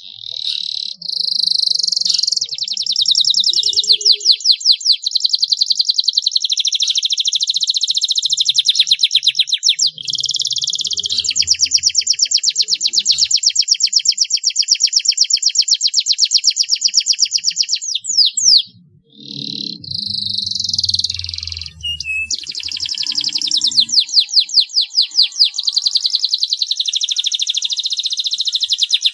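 Domestic canary singing long, fast, high trilled rolls of rapidly repeated notes, almost without a break. It pauses briefly about two-thirds of the way through, then takes up the song again.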